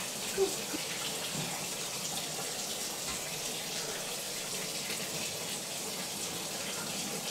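Tap water running steadily into a tub where a dog is being bathed, with one brief louder blip about half a second in.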